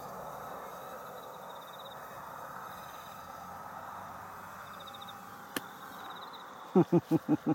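Steady whir of a tiny quadcopter's motors as it comes in to land, then a single sharp tap about five and a half seconds in as it touches down on an aluminium case. Near the end comes a rapid run of loud rhythmic pulses, about seven a second.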